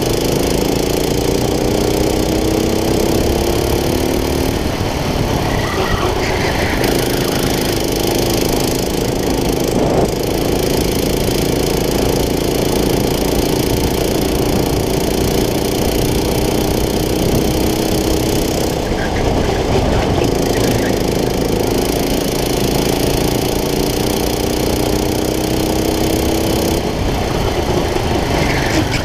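Racing kart's engine running hard, heard onboard: its pitch climbs steadily and drops back sharply about three times, around four seconds in, near the middle and just before the end.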